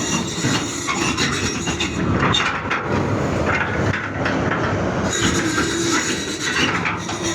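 Excavator at work loading: engine running under continuous metallic clattering and scraping, with a steady hum that stands out from about five seconds in.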